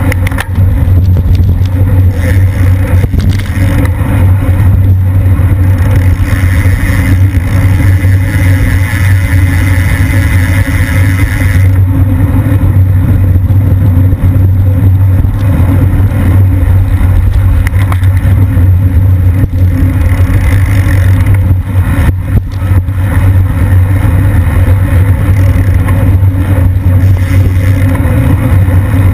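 Wind rushing over a bike-mounted camera's microphone as the bike rides in a racing pack at around 23 mph: a loud, steady rumble. A higher hiss joins for about five seconds in the middle.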